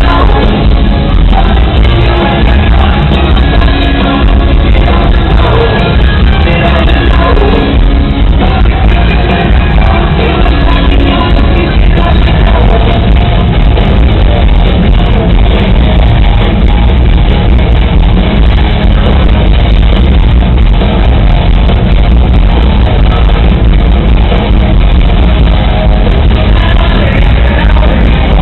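Hard rock band playing live, loud and muffled, with singing over it.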